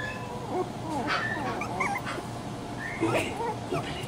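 Miniature schnauzer puppies whimpering and yipping: short, high-pitched cries, the loudest about a second in and again about three seconds in.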